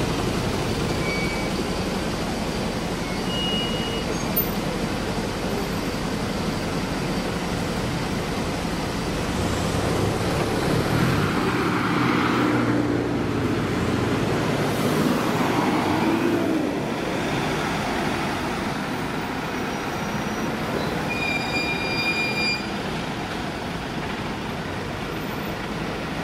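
A convoy of emergency vehicles, ambulances, Red Cross box trucks and fire engines, driving past one after another: steady engine and tyre noise, swelling twice in the middle as vehicles pass close by.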